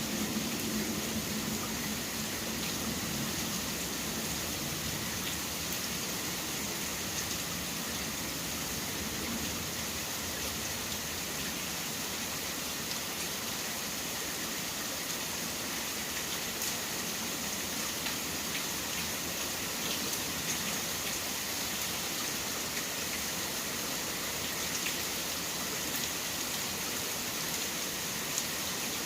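Steady rain falling, an even hiss with faint scattered drop ticks. A low hum at the start fades away within the first few seconds.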